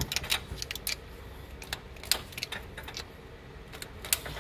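Irregular sharp metal clicks and taps, a dozen or so, as a screwdriver pries and knocks against the rocker arms and camshaft in the open cylinder head of a Ram 1500's 4.7-litre V8, working a rocker arm free to get at the lash adjusters beneath it.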